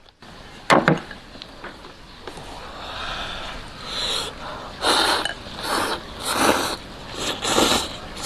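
Close-up eating noises from a man working through chili-oil-dressed chicken rack pieces: a sharp knock about a second in, then a run of loud, noisy mouth-and-breath sounds, sucking and sniffing, roughly once a second.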